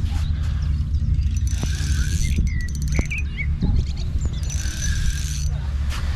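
Small birds chirping over a steady low rumble, with a couple of short hissing, rasping bursts a few seconds apart.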